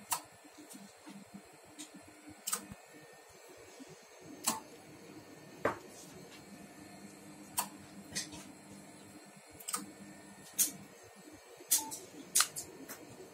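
About a dozen sharp clicks at irregular intervals over a low steady hum: the HF linear amplifier's relays switching as the transceiver changes band and keys it into transmit. The loudest clicks come near the end.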